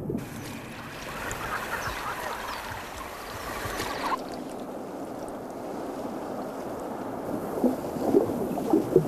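Water splashing and churning as a cormorant swims at the surface, changing abruptly about four seconds in to muffled underwater bubbling, with short gurgles near the end as the bird dives.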